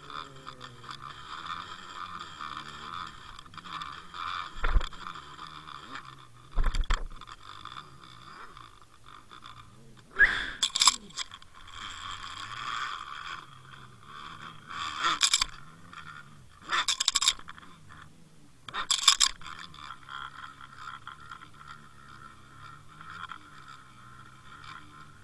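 Underwater camera on a fishing rig, heard through its housing: a steady whine with water noise, broken about six times by loud scrapes and knocks as the rig is jerked through the water.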